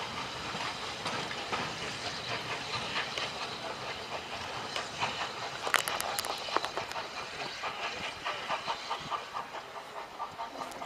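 Steam train pulling away: a steady hiss of steam from the locomotive with the coaches' wheels rumbling and clicking over the rail joints and pointwork. The clicking grows sharper and more frequent from about halfway through.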